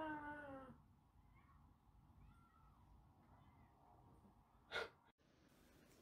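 African grey parrot giving a short meow-like call that falls slightly in pitch, followed by a few faint whistles and a brief rustle about five seconds in.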